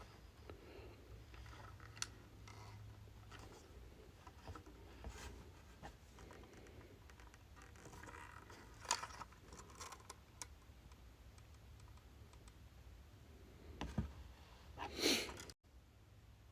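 Faint scattered clicks and light rustling of hands handling a die-cast model car and its plastic packaging, with a sharper click about nine seconds in and a short rustle near the end.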